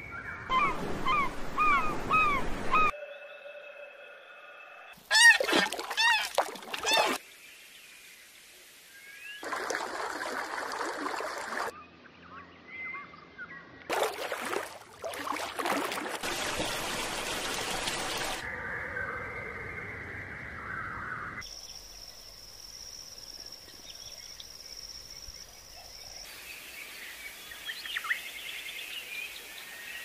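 Assorted wild bird calls from several different clips cut one after another, each segment starting and stopping abruptly. Some hold loud repeated calls that rise and fall in pitch. Others are stretches of steady outdoor noise and running water.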